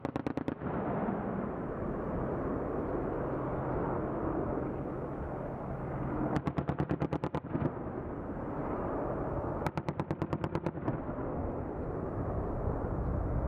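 AH-64 Apache helicopter's rotors and turbines running steadily overhead, with three short bursts of rapid cannon fire at about ten rounds a second, typical of its 30 mm M230 chain gun: one right at the start, one about six seconds in and one near ten seconds, each about a second long.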